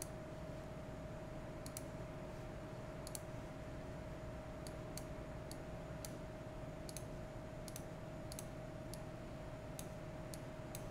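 Computer mouse clicking about a dozen times at irregular intervals, over a steady faint tone.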